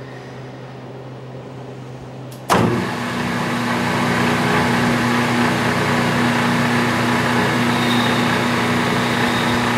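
Metal lathe switched on about two and a half seconds in: the spindle starts with a sudden jolt, spins up over about a second and then runs steadily with a constant hum. Before that there is only a low steady hum.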